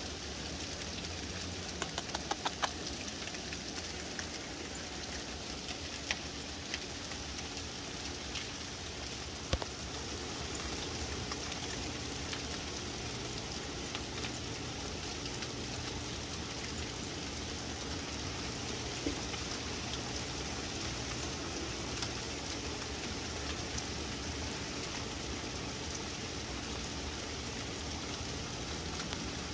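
Hail falling steadily, a continuous hiss of small pellets striking the deck and yard. A few sharp ticks stand out, with a quick run of them about two seconds in.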